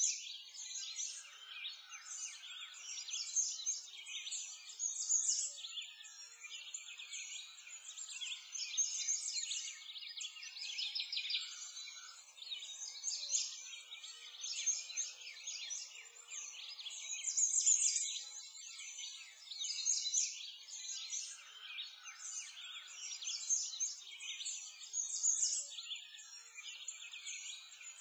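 Dense chorus of small songbirds chirping and trilling without a break, all high-pitched, with no low sounds under it.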